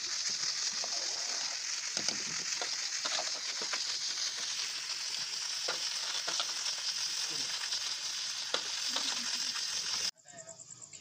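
A pot of rice at a rolling boil over a wood fire: a steady bubbling hiss with scattered small pops and crackles, cutting off suddenly near the end.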